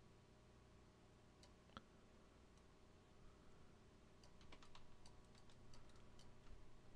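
Faint clicks of a computer mouse and keyboard over near-silent room tone: two single clicks about a second and a half in, then a quick run of clicks in the second half.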